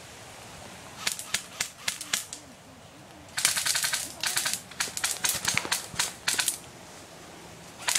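Airsoft guns firing: a few single shots about a second in, then a rapid run of shots at about three and a half seconds, with more shots following until near the end.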